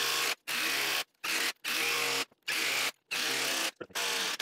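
Milwaukee M18 Fuel Gen 4 1/4-inch hex impact driver hammering in short repeated bursts, about two trigger pulls a second, as it backs lag bolts out of wood. The battery is nearly drained, and the last bursts come shorter and stuttering.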